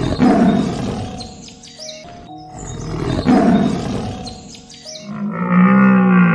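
A large animal's rough roar, heard twice in a row, each loud at first and fading, followed near the end by a drawn-out pitched animal call, over background music.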